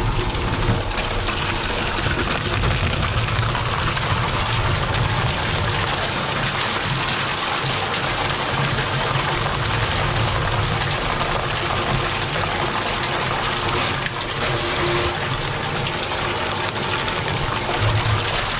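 Dirty wastewater gushing out of an open cleanout on a drain pipe and splashing into a plastic tub, steady throughout, over the low hum of a drain-cleaning machine turning its spiral cable. It is backed-up sewage draining out of the line as the spiral opens the blockage.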